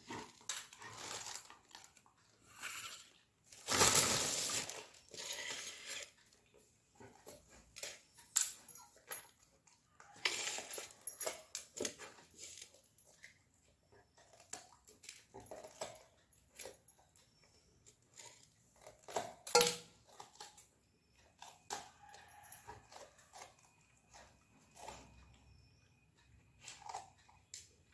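Golden retriever chewing and crunching raw cauliflower leaves and stalks, with scattered clicks and taps from a knife cutting cauliflower over a steel pot and a few louder sharp crunches.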